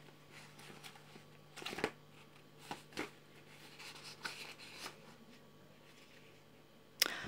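Paper and card handling as a hardcover journal is opened and loose sheets of writing paper tucked inside are leafed through: a handful of short, soft rustles and taps over a faint, steady low hum.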